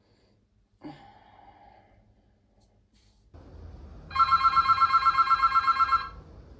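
Hotel room telephone ringing: one loud electronic trill with a fast warble, lasting about two seconds and starting about four seconds in.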